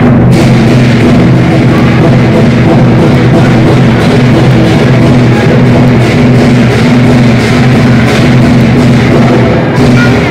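Chinese lion dance percussion: a large drum with clashing cymbals, playing loudly and without a break.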